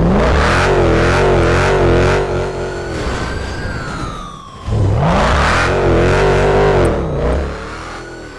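Stretch limousine's engine revved hard during a burnout, held at high revs for about two seconds, dropping back, then revved hard again for a couple of seconds before falling away.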